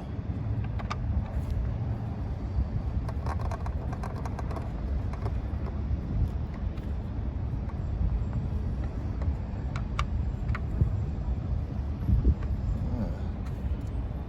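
Steady low rumble of street traffic, with a few light clicks and taps from hand work on the engine bay wiring.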